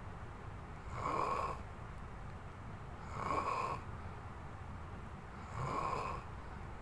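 Snoring in sleep: three loud, rasping snores at an even pace, about two and a half seconds apart.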